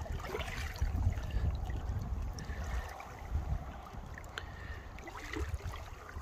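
Wind buffeting the microphone in uneven low gusts, over the trickle and lap of river water at the bank, with a few faint ticks.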